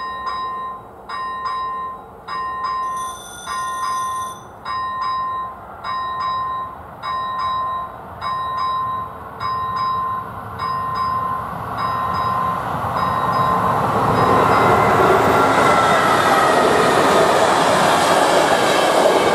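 Electronic level-crossing bell (ZV-01) of an AŽD 71 light-signal crossing ringing steadily about once a second. A passenger train then approaches and passes over the crossing. Its rumble and rail noise grow from about twelve seconds in and are loud from about fourteen seconds, drowning out the bell.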